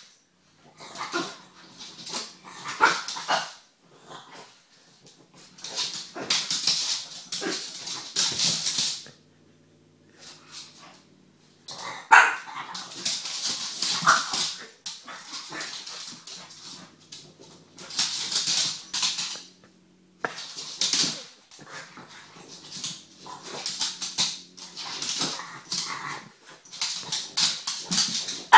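French bulldogs barking and yapping in repeated short bouts, with bursts of harsh, hissy noise between the barks.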